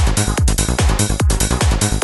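Background electronic dance music with a heavy kick drum on a steady beat, about two and a half beats a second.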